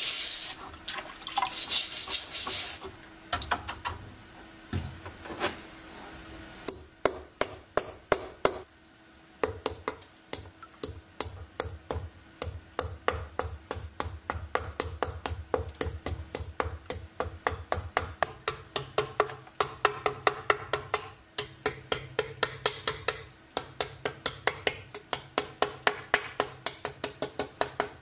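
A few seconds of a wet sponge scrubbing a rusty steel helmet, then background music with a steady clicking, wood-block-like beat of about four strokes a second.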